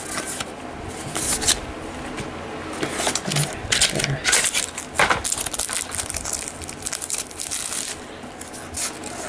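Trading cards and booster-pack wrappers being handled, a run of short paper rustles and card slides.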